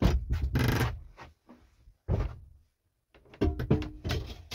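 Heavy wood-burning stove of about 70 kg being shifted and set down on bricks on the floorboards: a string of thuds and knocks with scraping, one more thump about two seconds in and a burst of knocks near the end.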